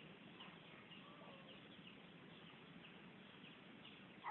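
Near silence: quiet outdoor background with faint, scattered bird chirps.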